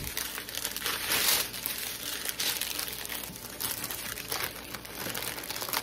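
Clear plastic packaging crinkling and rustling in irregular bursts as a strip of sealed plastic bead packets is handled and put down.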